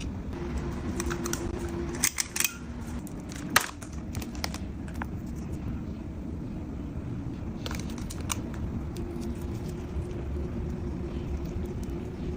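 Dog eating, with a few sharp mouth clicks and crunches: a quick cluster about two seconds in, the loudest a second later, and two more near the end, over a steady low hum.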